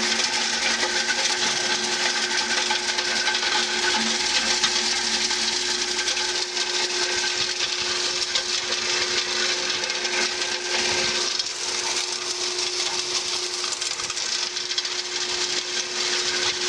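Q-Sage 10 by 24 debearder running steadily, its rotor beating dishwasher soap pods against the stationary teeth to knock the soap powder out of the packets: a steady machine hum and whir with a constant fine rattle of pods. About two-thirds through, part of the hum drops away.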